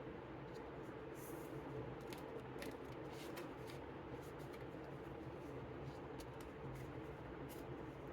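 Faint paper rustling and light ticks as the flaps and pages of a lift-the-flap book are handled, over a steady low hum.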